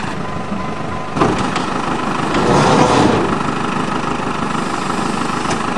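Backhoe loader's engine running steadily while its front bucket holds up a car, with a single knock about a second in.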